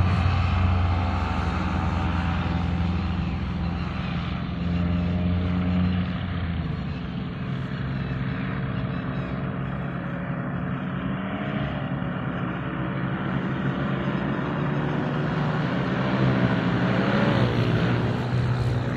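Paramotor engine and propeller running as it flies low overhead, the pitch dropping right at the start and rising again near the end with the throttle.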